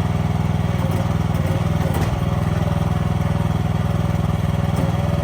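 Excavator engine running steadily with an even, rapid beat, heard close up. A short click about two seconds in.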